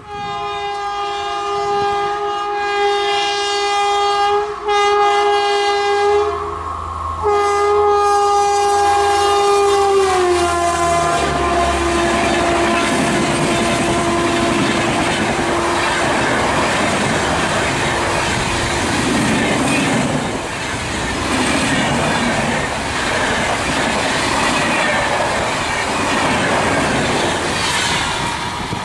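Electric locomotive's horn sounding three times, a long blast, a short one and a long one that drops in pitch as the WAP-4 passes, followed by a passenger train's LHB coaches rushing past at speed with wheels clattering over the rail joints.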